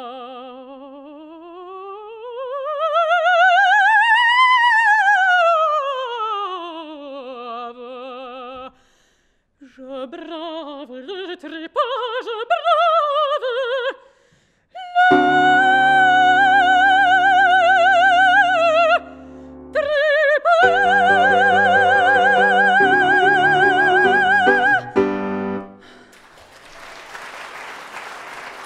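A female opera singer with piano accompaniment ends an aria: a long phrase with vibrato sweeps up to a high note and back down, a few broken phrases follow, then two long held high notes of about four seconds each ring out over sustained piano chords. Applause breaks out near the end.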